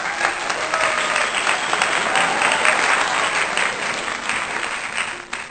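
Crowd applauding: dense, steady clapping that fades out near the end.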